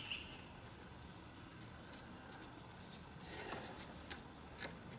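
Faint scratching and light clicks of a screwdriver backing the screw out of a motorcycle battery terminal, and of the loosened cable and wires being handled. A cluster of small ticks comes about three and a half to four and a half seconds in.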